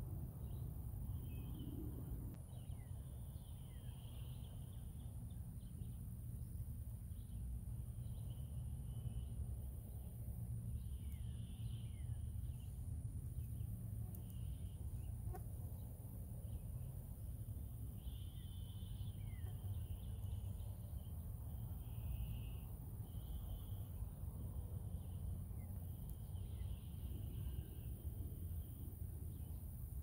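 Pond-side ambience: a steady low rumble under short buzzy calls that repeat every second or two, a few brief falling bird chirps, and a constant thin high hiss.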